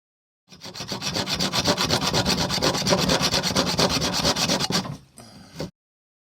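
A children's hand saw sawing through a wooden stick about two inches thick in quick, even strokes. The sawing stops about five seconds in, followed by a brief fainter rustle before the sound cuts off suddenly.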